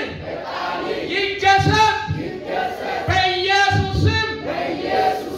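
A congregation praying aloud all at once: many voices overlapping in loud, drawn-out, almost sung phrases.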